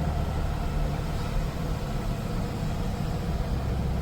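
Firewood delivery truck's engine running steadily with road noise as it drives uphill, a low even hum.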